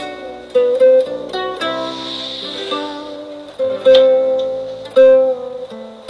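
Background score music played on plucked guitar, a melody of picked notes.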